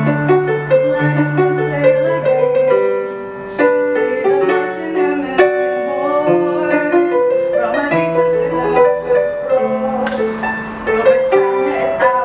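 Electronic keyboard played in a piano voice: chords and a melody of struck notes over held bass notes.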